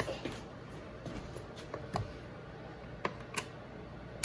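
A few light clicks and knocks from handling a countertop blender whose motor does not start, because the blender is not plugged in.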